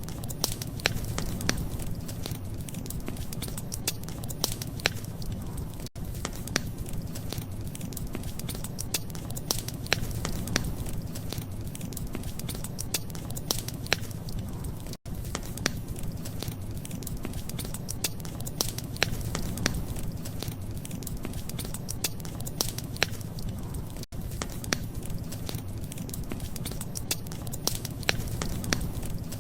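Wood fire crackling, with many sharp pops and snaps over a steady low rumble. The sound cuts out for an instant about every nine seconds.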